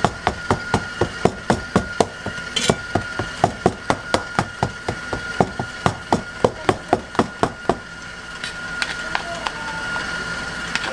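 Plastic spatula knocking against the bottom of a paper-lined metal baking tray about four times a second as thick cake batter is stirred by hand; the knocking stops about eight seconds in. A steady high-pitched hum runs underneath.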